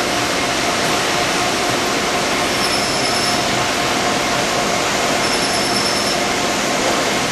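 VMC220L CNC vertical machining center milling a cast metal part under flood coolant: a steady, even wash of coolant spray and cutting noise with a faint held tone underneath.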